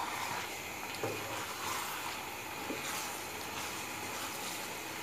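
Quiet steady sizzling from a pan of ridge gourd, chana dal, tomatoes and spices frying in oil, with a couple of soft knocks of a wooden spoon as it is stirred.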